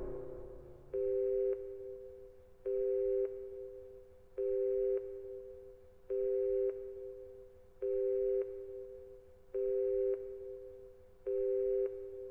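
Telephone busy signal, slowed down and heavy with reverb: a low two-note beep repeats seven times, about once every 1.7 s, each one echoing away before the next. At the very start the last of the song's music fades out.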